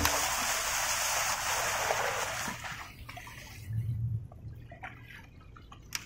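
Water rushing and splashing along a small boat's hull, fading out about halfway through to quieter lapping and trickling against the hull.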